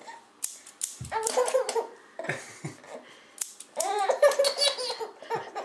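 A baby giggling in two short bouts of laughter, with a few sharp clicks in between.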